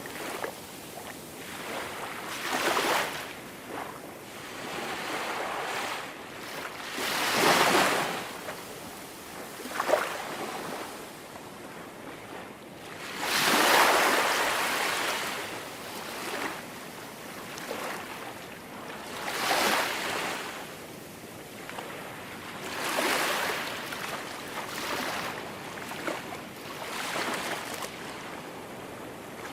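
Small waves breaking and washing up onto a sand beach, each one a swell of hissing water every few seconds, the largest about halfway through.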